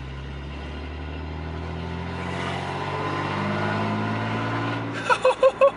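BMW E46 with an aftermarket valved exhaust accelerating, heard from inside the cabin. The engine note climbs steadily in pitch and loudness for about four seconds, then eases off.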